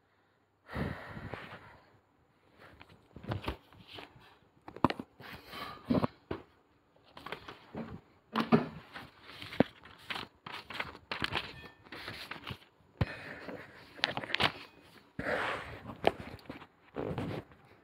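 Irregular rustling and knocking noises with sharp clicks, coming in short bursts.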